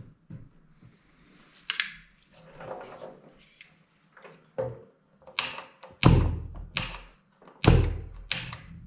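Kitchen clatter: a run of sharp knocks and bangs from cookware and kitchen fittings being handled, with two heavy thumps in the second half.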